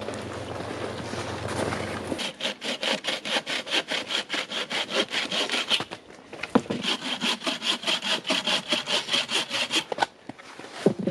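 Hand saw cutting through wood in quick, even back-and-forth strokes, about four or five a second, in two long runs with a short break and a knock near the middle. The first two seconds are a softer rustling before the sawing starts.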